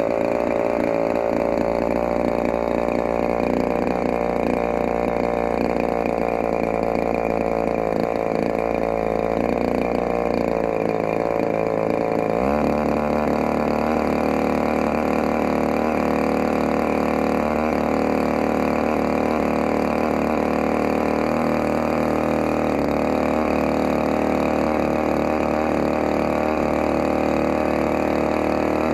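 DLE-35RA 35 cc single-cylinder two-stroke gasoline model-aircraft engine running on a test stand during its break-in. Its speed sags a little about ten seconds in, then rises quickly about twelve seconds in and holds steady at the higher speed.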